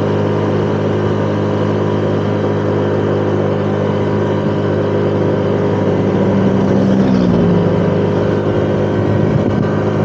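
Honda Click 125 scooter's single-cylinder four-stroke engine running steadily at cruising speed, with road noise. About seven seconds in, a louder tone briefly drops in pitch.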